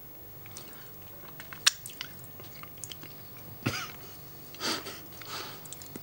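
A man tasting a gluey, over-processed potato purée in his mouth: scattered wet mouth clicks and lip smacks, with a couple of breathy sounds in the second half.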